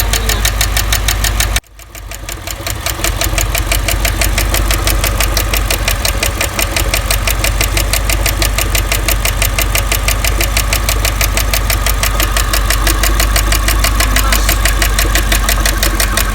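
V8 engine running with its valve cover off, with a rapid, even tapping from the valvetrain. The owner suspects a collapsed AFM valve lifter on cylinder 7 that has stuck its rocker arm. The sound cuts out briefly about a second and a half in, then comes back.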